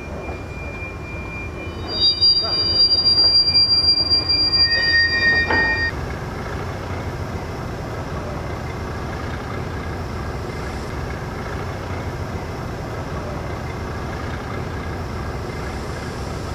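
Rail wheels squealing shrilly for about four seconds, starting about two seconds in, over the steady low rumble of a class D145 diesel shunter moving a flat wagon and barrier carriage at slow speed. After the squeal stops, only the shunter's low rumble continues.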